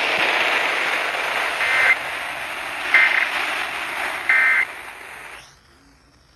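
Hiss of a weak radio broadcast with three short bursts of Emergency Alert System data tones about a second and a half apart: the end-of-message signal that closes the alert relay. The hiss then drops away to faint dead air about five seconds in.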